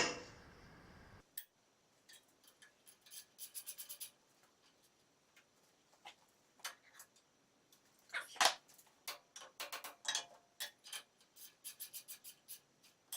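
Hand-tool clicking in short quick runs, like a ratchet wrench driving bolts, with separate metal clinks and one louder clunk about eight and a half seconds in.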